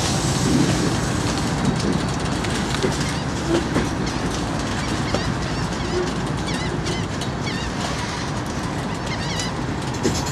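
A train of empty refrigerated boxcars rolling steadily past: a continuous rumble of steel wheels on the rails, with quick clicks as the wheels cross the rail joints.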